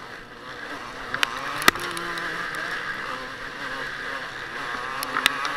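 Motocross bike engine running hard, heard from on board, its pitch wavering as the throttle works over rough ground. A few sharp knocks come through, twice close together about a second and a half in and again near the end.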